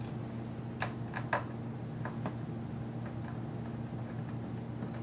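Light clicks and taps of a small Torx hinge screw and screwdriver being handled during MacBook Air display removal: three sharp clicks about a second in, and two fainter ones a second later. A steady low hum runs underneath.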